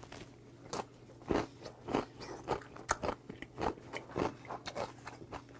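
Close-miked chewing of a mouthful of kimchi: a quick, irregular run of wet crunches, the loudest about a second and a half in and near the middle.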